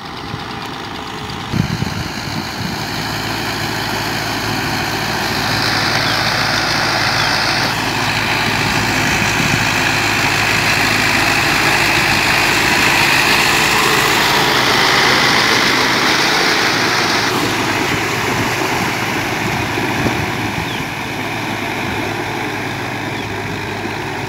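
Fiat 640 tractor's four-cylinder diesel engine running steadily under load as it drags a cultivator through a flooded paddy, with a rushing noise of churned water and mud over it. It grows louder in the middle as the tractor comes close, then eases off.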